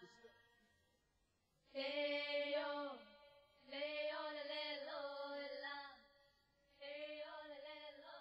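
Quiet closing bars of a song: three long, held, voice-like notes with short gaps between them, the first sliding down in pitch as it ends.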